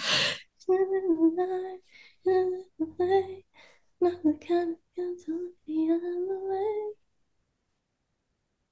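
A woman singing quietly in short, held phrases of a pop melody, working through a song to recall its next line; the singing stops about seven seconds in.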